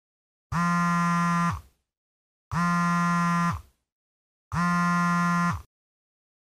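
Mobile phone on vibrate buzzing three times, each buzz about a second long and two seconds apart, dipping in pitch as the motor stops.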